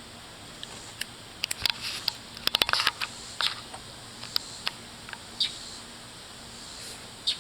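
Northern mockingbirds scolding while mobbing a cat: short, harsh chack notes and sharp clicks, a rapid cluster about two seconds in, then single notes spaced a second or so apart.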